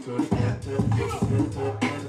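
Hip hop music with a steady beat and bass line.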